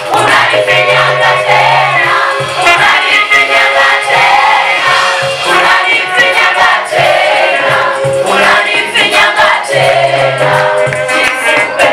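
A vocal group singing a gospel praise song, several voices together in harmony.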